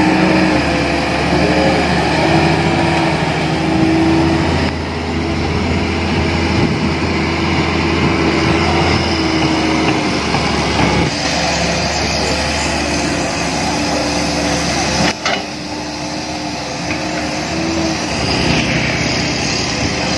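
Hitachi hydraulic excavator's diesel engine running and working under load as it digs and swings soil, with a whine that shifts in pitch as the load changes. A brief knock about fifteen seconds in.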